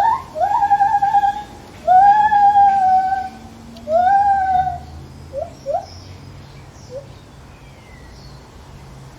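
Lar gibbon calling: a few short rising whoops, then three long hooting notes that each swoop up and hold, then two or three short rising whoops that trail off about halfway through.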